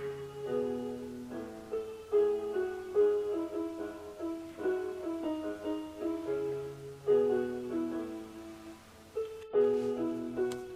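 Background piano music: a melody of held notes over a lower accompaniment. It breaks off for an instant near the end and starts again.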